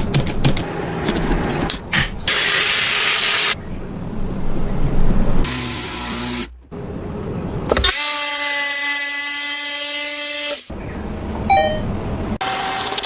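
Woodworking power tools in a quick series of short cuts: a hissy cutting noise in the first few seconds, then a motor's steady whine from about eight seconds in that stops sharply before eleven seconds.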